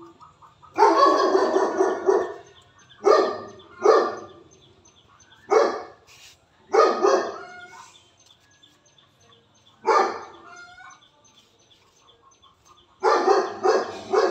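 A dog barking repeatedly in separate bursts, with a longer run of barks about a second in and another near the end. Faint bird chirps in the gaps.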